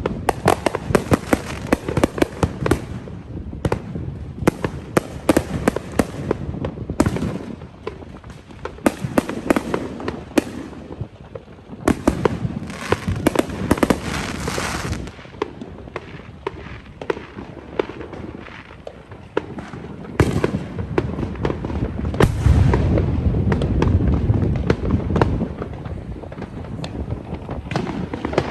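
Fireworks going off in dense volleys of crackling bangs, in bursts with short lulls between them, with a deeper rumbling barrage about three quarters of the way through.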